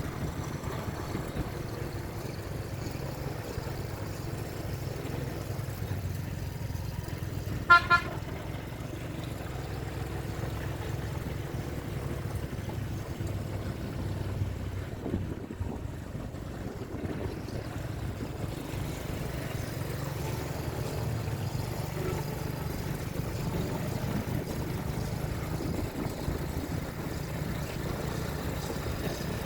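Steady low rumble of road traffic and engine noise, with a short double beep of a vehicle horn about a quarter of the way in, the loudest sound.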